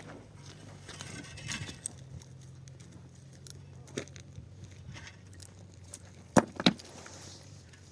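Two sharp knocks about a third of a second apart near the end, over a low steady hum and scattered faint clicks.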